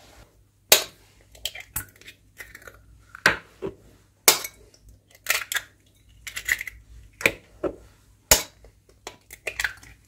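Raw eggs being cracked into a stainless steel bowl: three sharp knocks about four seconds apart as each shell is struck, with smaller clicks and crackles between them as the shells are pulled open.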